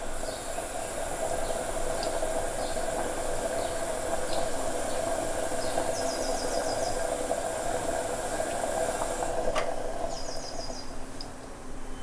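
Gas stove burner hissing under a pan of curry coming to the boil, with a bubbling sound. A little after nine seconds there is a click and the hiss cuts off: the burner is turned off at the boil. Short chirps, like birds, sound faintly a few times.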